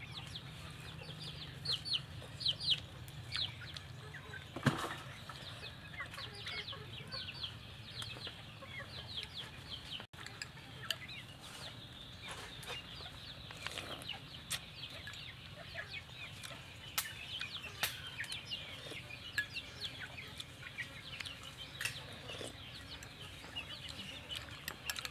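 Chickens clucking, with many short, high, falling chirps scattered throughout.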